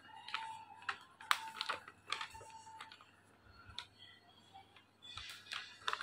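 A paper goodie bag being folded and handled, with sharp crinkles and light taps of the paper, over faint background music.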